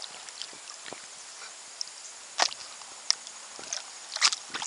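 Light water splashes and knocks as a stick and a kayak paddle are worked at the surface. There are a few isolated ones at first, then a quicker cluster near the end.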